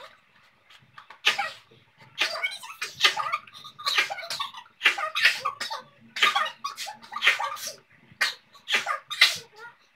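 People sneezing again and again: a dozen or more sharp sneezes about half a second to a second apart, brought on by chhikni sneezing powder sniffed into the nostrils.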